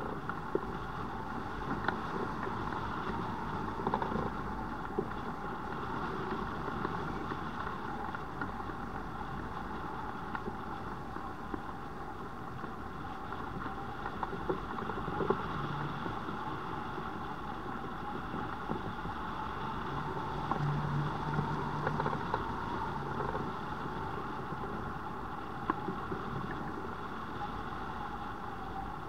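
Steady rush of airflow past a hang glider in flight, buffeting the glider-mounted microphone, with a few light clicks.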